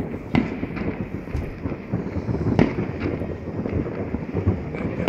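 Many fireworks exploding at once: a continuous rumble of overlapping bangs, with several sharper reports standing out. The loudest comes about two and a half seconds in.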